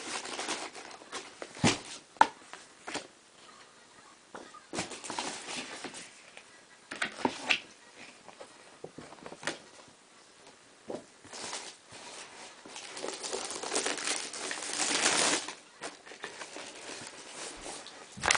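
Packaging being handled while football boots are unboxed: irregular rustling and crinkling of paper, with scattered knocks and clicks of the box, the longest rustle building about two thirds of the way through.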